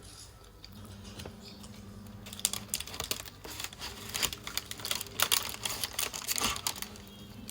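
Close-miked eating of a kota, a loaf stuffed with chips and sausage: a quick run of crisp mouth clicks and crunches starts about two seconds in and stops near the end.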